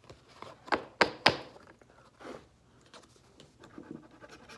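Scratching on a scratch-off lottery ticket, stopping for a moment with three short sharp sounds about a second in, then faint scratching resumes near the end.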